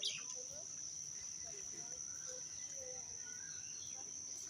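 A steady, high-pitched insect drone running without a break, with a short falling bird chirp right at the start and faint, scattered bird calls.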